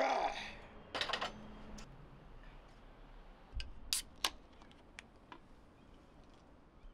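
A strained breath from a man pressing a barbell at the start. About four seconds in, two sharp clicks as the pull tab of an aluminium drink can is levered open, followed by a few faint ticks.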